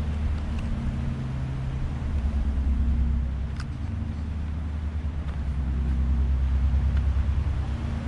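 An engine running steadily close by: a low, even hum.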